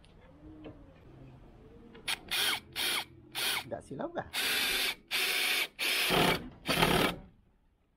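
Worx WU175 20 V cordless drill driver driving a screw into a wooden plank in short trigger pulses: about nine quick bursts of the motor, the later ones longer, stopping suddenly after the last.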